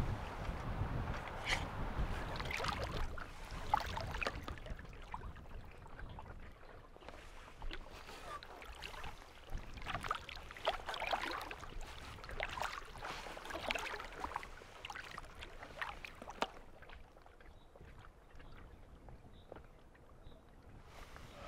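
Double-bladed paddle dipping and splashing in the water as a packraft is paddled, the strokes coming irregularly and thinning out in the last few seconds. Wind rumbles on the microphone near the start.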